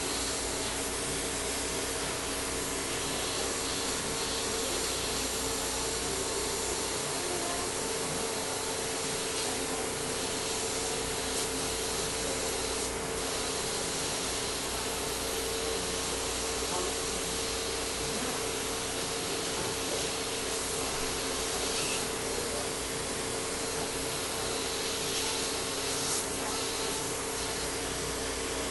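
Dental surgical suction running, a steady hiss with a constant hum.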